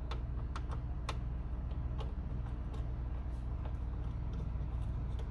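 Scattered metal clicks and taps from a socket wrench being worked on a small bolt, over a steady low hum.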